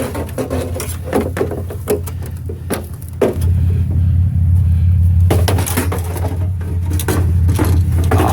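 Scrap metal clattering and knocking as it is handled, with short irregular knocks throughout. Under it runs a steady low hum that grows louder a little over three seconds in.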